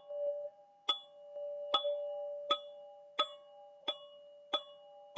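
A tuned chime struck in a steady, unhurried rhythm, about seven strikes, each ringing on in several clear overlapping tones that carry between strikes.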